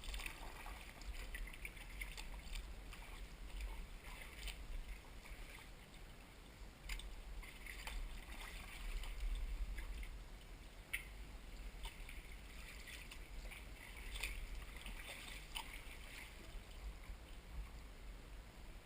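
Sea kayak on open water: water sloshing and splashing around the hull and paddle, with short irregular splashes and drips over a steady hiss and a low rumble.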